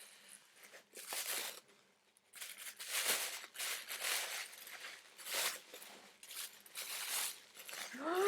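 Paper packaging being unwrapped by hand: repeated bursts of crinkling and tearing with short pauses between them.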